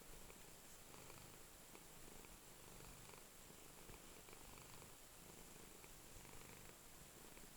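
A domestic cat purring faintly and steadily as it falls asleep.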